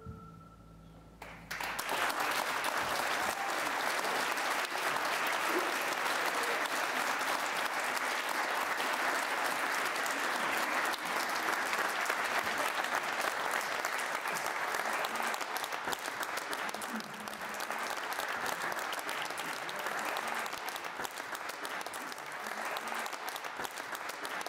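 A concert audience applauding: the last chord of the piece dies away, and after a brief hush the applause breaks out about a second and a half in and carries on steadily.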